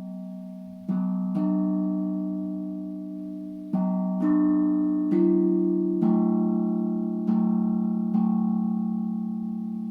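Tank drum (steel tongue drum) struck note by note, about eight strikes in all, each note ringing on with a long slow fade so that the notes overlap and blend.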